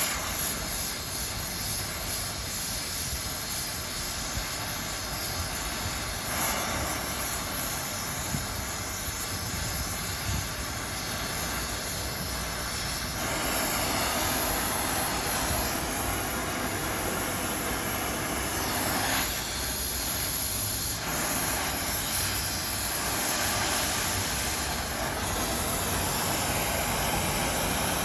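Electric arc welding on cast iron: a steady hissing sizzle with no motor whine, its level shifting now and then as the weld goes on.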